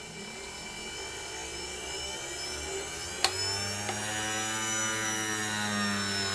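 Anemometer drive motor spinning a Wind Monitor's propeller shaft up to a set 5100 RPM. Its whine climbs in pitch and then levels off at a steady speed, with one sharp click about three seconds in.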